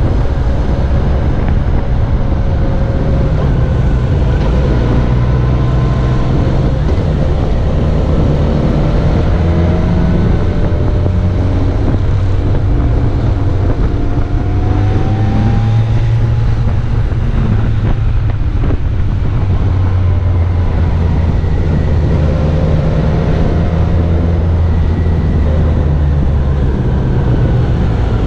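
Motorcycle engine running under way, its pitch rising and falling with the revs through the bends, over a steady rush of wind on the microphone.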